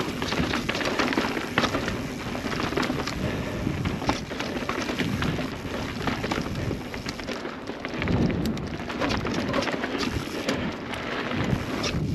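Transition Spire full-suspension mountain bike riding down a dirt trail, heard from a helmet-mounted camera: tyres rumbling and crunching over the ground, with a constant irregular clatter of knocks and rattles from the bike.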